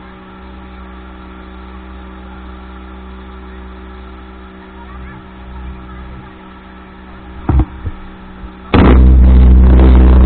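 Speedboat engine running steadily under way, a steady drone. Two short knocks come late on, then near the end the sound suddenly turns much louder, a dense rushing noise heaviest in the lows.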